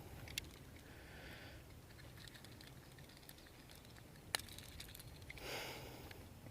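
Faint handling noises as a treble-hooked lure is worked free of a smallmouth bass's mouth: scattered small clicks and taps, with one sharp click about four seconds in and a short rushing sound just after.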